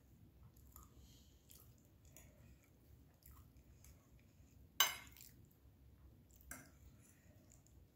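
Close-miked chewing of soft food (salmon and mashed potato), with small wet mouth sounds. A fork clicks on the plate, sharpest once just before five seconds in and again more softly about a second and a half later.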